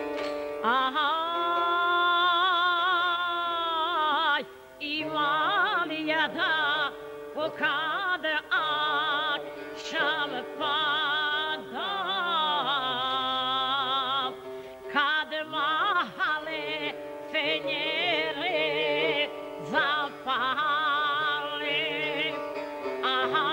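A woman singing a sevdalinka in long, ornamented held notes with wide, wavering vibrato, a saz playing beneath her voice.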